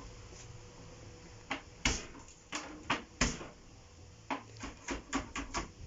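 A string of short, sharp knocks and clacks of kitchen prep, about a dozen of them, irregularly spaced, starting about a second and a half in.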